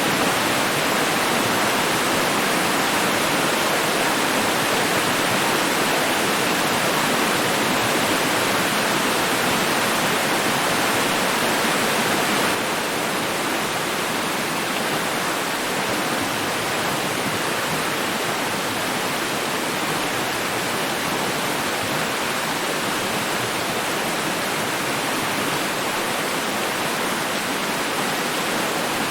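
Running water making a steady, even rush, stepping slightly quieter about twelve seconds in.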